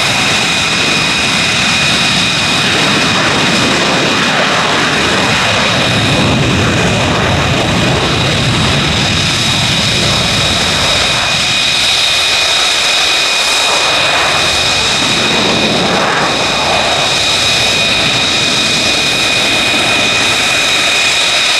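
CF-18 Hornet's twin jet engines on a takeoff run and climb-out: loud, steady jet noise with a constant high-pitched whine over it.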